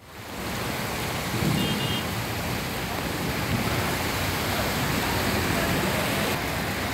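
Steady rush of heavy rain, with the hiss of traffic on waterlogged streets; it fades in at the start.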